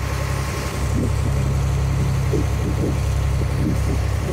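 Motorboat engine running steadily with a constant low hum, with water rushing past the hull.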